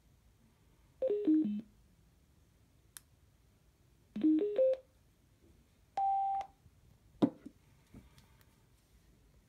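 Xiaomi Mi Bluetooth mini speaker's electronic prompt tones: a falling four-note chime about a second in, then a rising four-note chime around four seconds in as it powers on and its blue light comes on, then a single held beep a little after six seconds. A few sharp knocks follow as the speaker is set down on the wooden table.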